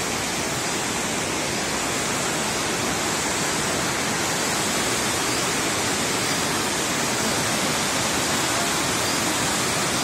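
Waterfall cascading over rocks: a steady rushing noise of falling water.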